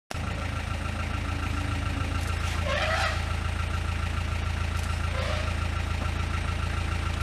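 Vehicle engine idling steadily, a constant low hum, with two short rising calls about three and five seconds in.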